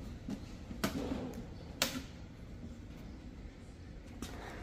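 Hard plastic clicks and knocks from a collapsible portable camping toilet as its lid is pressed down and flipped open: a few sharp clicks, the loudest about two seconds in.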